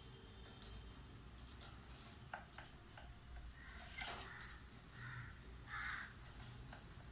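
Cockatiels clicking and tapping on a table fan, with three short harsh calls from a cockatiel in the middle.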